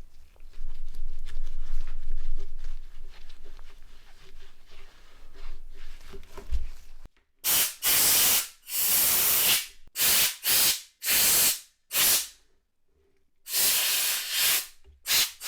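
Short blasts of compressed air hissing, about nine of them in the second half with near-silent gaps between, blowing dust off phone parts such as the display. Before the blasts there is irregular rustling and handling noise.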